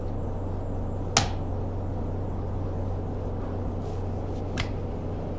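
Two short clicks of a vape pod being pressed and seated into a Nautilus Prime X box mod: a sharp, louder one about a second in and a fainter one near the end. A steady low hum runs underneath.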